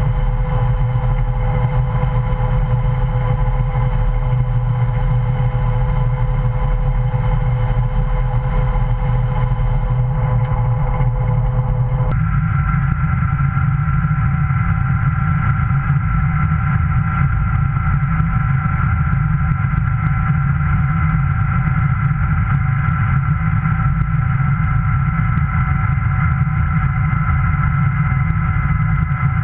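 Heavy farm machinery engine running steadily under load, a continuous drone with a steady whine above it. About twelve seconds in, the pitch of the whine changes abruptly and then holds steady again.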